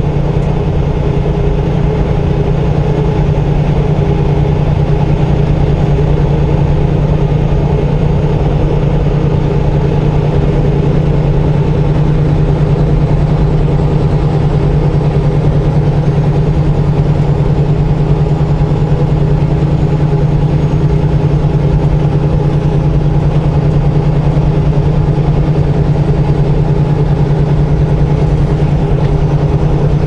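Semi truck's diesel engine running steadily at highway cruise, heard from inside the cab as a constant low drone with road noise over it.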